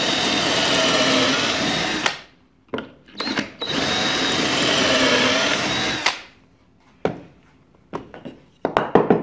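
Craftsman cordless drill boring two pocket holes in a pine board through a pocket-hole jig, each run steady for about two and a half seconds with a short blip of the trigger between them. Near the end come a few sharp knocks as the board is handled in the jig.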